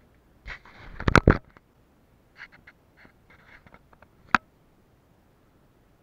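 A quick run of loud sharp knocks about a second in, then a few softer clicks and clatters, and one sharp click with a brief ring a little past four seconds.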